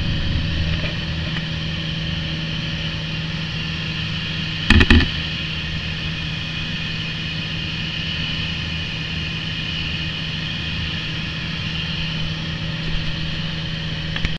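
Piper PA-28 light aircraft's piston engine and propeller running steadily in flight, a constant drone. A brief loud burst cuts across it about five seconds in.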